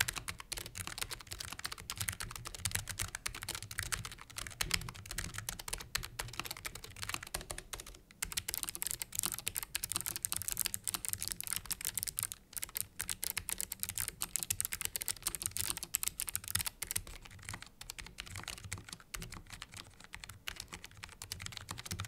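Fast typing on a Logitech G915 Lightspeed low-profile mechanical keyboard, a rapid stream of key clacks, in a sound test of its GL switches. After a brief pause about eight seconds in, the GL Clicky switches give sharper, brighter clicks. About seventeen seconds in the clicking turns softer on the GL Linear switches.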